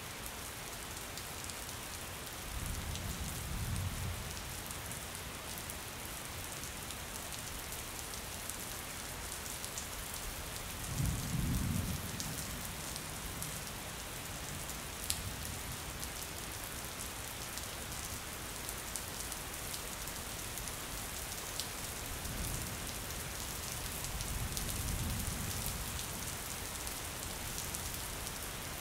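Steady rain falling on a window, with fine drop ticks throughout. Low rolls of thunder come three times: about three seconds in, a louder one with a sharper start near the middle, and a slow swelling one near the end.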